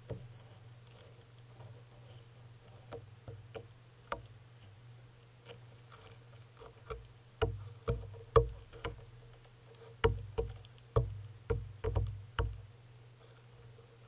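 Western gull pecking birdseed off a deck railing close to the camera: irregular sharp taps of the bill, a few faint ones at first, then about a dozen loud ones in quick runs over the second half.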